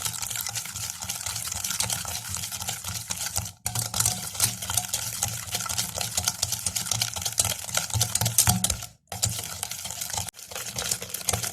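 Eggs and sugar being beaten by hand in a bowl: rapid, continuous clicking and scraping of the utensil against the bowl as the sugar dissolves into the eggs, broken off briefly three times.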